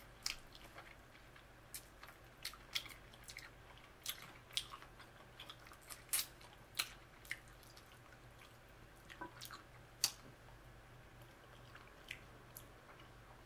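Close-up eating of fried chicken wings: irregular wet mouth smacks and chewing, with short sharp clicks scattered through, the sharpest about ten seconds in.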